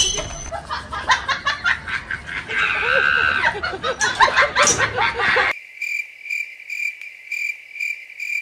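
Rapid stuttering sounds, like snickering, for about five seconds. Then an abrupt switch to crickets chirping about twice a second.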